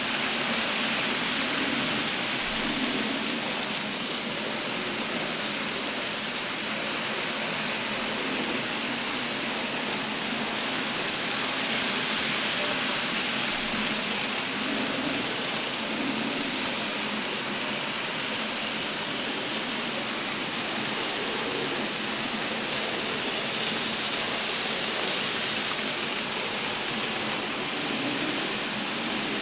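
Minitrix N gauge model trains running on the track: a steady whirring hiss of small motors and metal wheels on the rails, with a faint lower hum that comes and goes as trains pass.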